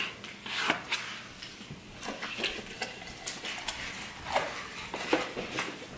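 Crinkling tissue paper and light clicks and taps of small cardboard gift boxes being handled and opened, in short irregular bursts.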